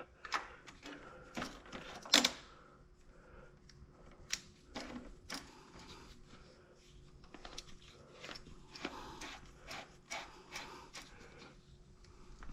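Irregular light clicks and clinks of hand tools and small metal hardware being worked while fitting an exhaust mounting bolt and washer, with one louder knock about two seconds in.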